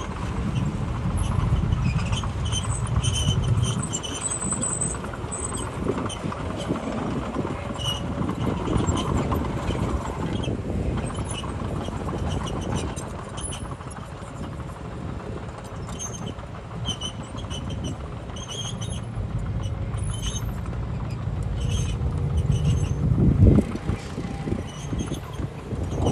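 Heavy diesel machinery running under load, a steady low engine rumble with short high metallic squeaks coming and going, and a louder surge near the end.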